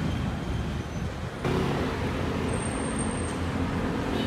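Steady rumble of city road traffic, with an abrupt change in the background noise about a second and a half in.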